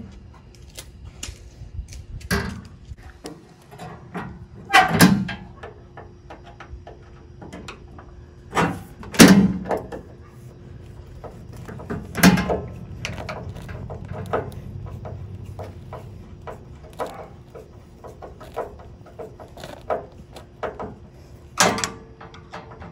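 Scattered light clicks and several louder knocks of hands and small self-tapping screws working against the sheet-metal roll pan where it meets the truck's body panel.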